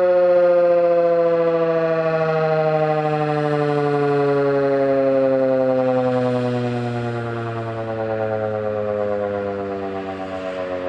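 Federal Signal 2001-130 rotating tornado siren sounding its two-tone chord, with the pitch sliding slowly and steadily downward as it winds down.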